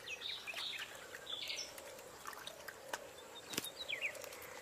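Faint wetland ambience: scattered short bird chirps, a cluster early on and a few more near the end, over a low steady drone with a few soft clicks.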